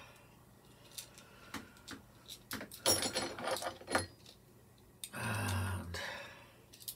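Small metal hardware, a 5 mm bolt and nut, clicking and clinking as it is handled in the fingers, with a burst of jingling about three seconds in. A brief low hum comes about five seconds in.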